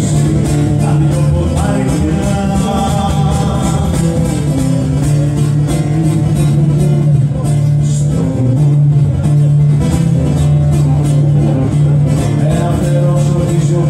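Live song: a man singing into a microphone while playing an acoustic guitar, amplified through a PA.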